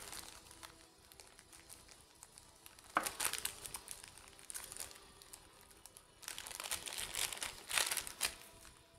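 Small plastic bag crinkling as a serger's rolled-hem presser foot is unwrapped from it: a short rustle about three seconds in, then a longer stretch of crinkling from about six to eight seconds.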